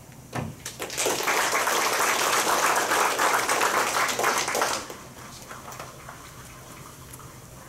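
Audience applauding, starting about a second in and lasting about four seconds before it stops.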